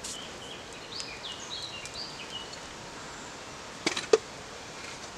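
A songbird singing a few short, high warbling phrases, then two sharp snaps about four seconds in, the louder one last, as the smouldering kindling catches alight and crackles.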